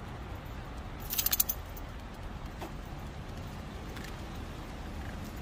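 Metal tags on a dog's collar jingling briefly with a few quick clinks about a second in, over a steady low outdoor rumble.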